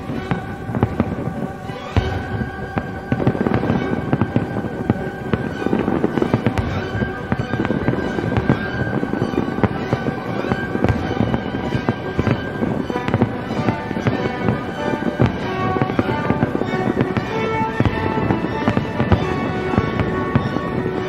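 Fireworks shells bursting and crackling in a rapid, continuous barrage, with music playing along.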